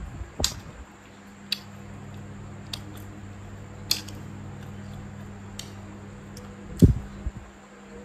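Wooden chopsticks clicking against porcelain plates and a rice bowl while eating: about half a dozen sharp, separate clicks a second or so apart, and one duller, louder knock near the end. A steady low hum runs underneath.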